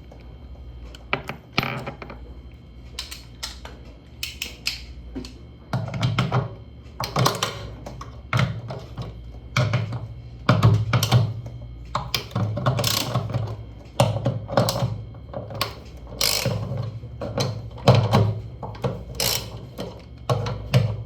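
Irregular knocks, taps and clatter, a few each second at uneven spacing, over a low steady hum.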